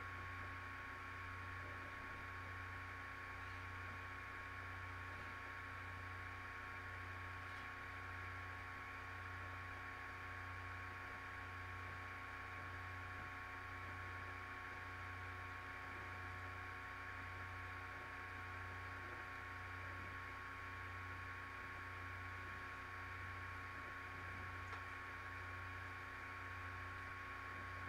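Steady electrical hum and hiss with a thin, constant high whine, and a low hum that throbs about once a second underneath; nothing else happens.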